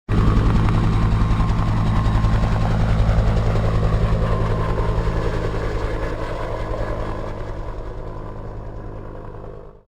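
Helicopter in flight: its rotor beats as a rapid, even pulse over a steady engine drone. It grows slowly fainter over the second half, then cuts off abruptly just before the end.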